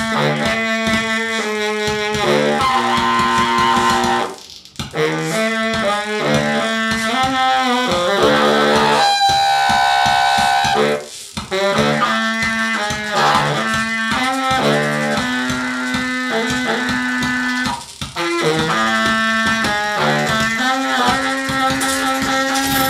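Free-improvised music led by a baritone saxophone playing rapid, choppy low notes, with short breaks about every six or seven seconds.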